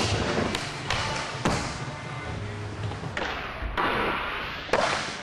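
Skateboard on concrete, with the wheels rolling and a few knocks in the first seconds. From about three seconds in, the board scrapes down a metal handrail, then lands with a loud thud near the end.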